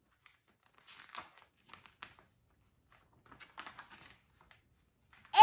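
Pages of a large picture book being turned, the paper rustling in short bouts about a second in and again past three seconds.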